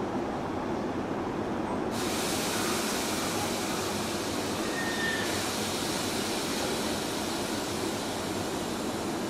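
Hanshin 7861-series electric train standing at the platform with its doors open, its onboard equipment running with a steady noise. About two seconds in, a steady hiss comes in suddenly and holds.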